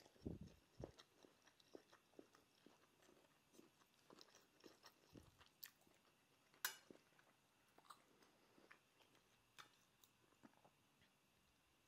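Quiet sounds of a metal spoon scooping fried rice off a ceramic plate. Scattered soft crackles of rice grains mix with light clicks of the spoon against the plate, and the sharpest click comes about two-thirds of the way through. A couple of soft low thumps are heard near the start and about halfway.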